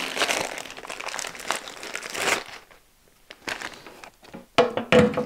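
Plastic bag crinkling as sanding spindles are unwrapped. After a short pause come a few sharp knocks and clinks as a spindle is set into a storage hole in the side of the bobbin sander.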